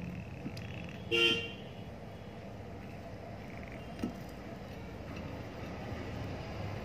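A short, loud, pitched toot about a second in, over a steady low background hum, and a single light metallic knock about four seconds in as the iron's pressure plate is set down onto the element.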